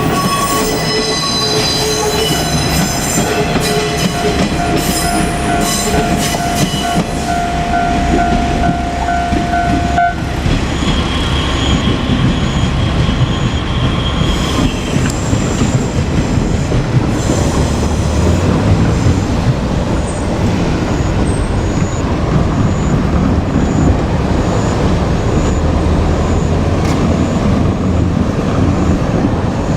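Two-car KiHa 47 diesel railcar set running past, its wheels squealing in several high ringing tones for about the first ten seconds over a steady rumble of engines and wheels on the rails.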